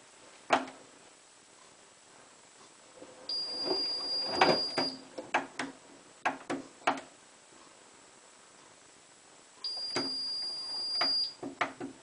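Hotpoint Ultima WT960 washing machine's controls being set: a sharp click about half a second in, then two high electronic beeps of about a second and a half each, some six seconds apart, each followed by a run of quick clicks as the programme is selected.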